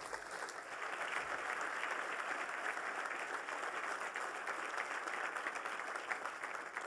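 Audience applauding: many hands clapping in a dense, steady patter that begins to die away near the end.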